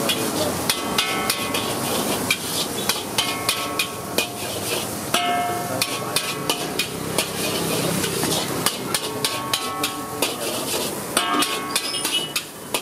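Metal spatula repeatedly knocking and scraping against a wok while stirring scrambled eggs, several sharp clanks a second with the pan ringing briefly after the hits.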